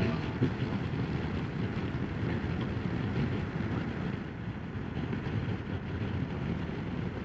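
Wind rushing over the microphone of a rider on a Ducati Multistrada 1200 motorcycle at road speed: a steady, fluctuating low rumble with no clear engine note.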